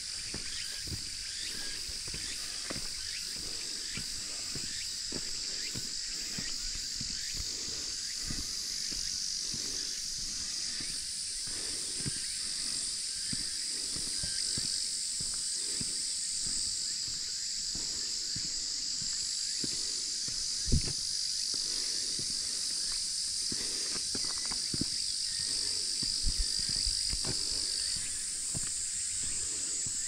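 Steady high-pitched insect chorus in summer vegetation, with a hiker's regular footsteps on the road underneath. There is a sharp thump about two-thirds of the way in and a few lighter knocks a little later.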